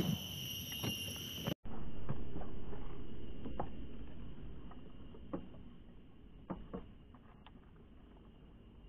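Light handling sounds of a spinning rod and reel while casting a pencil lure: a soft hiss that fades away over a few seconds, with a few faint clicks from the reel.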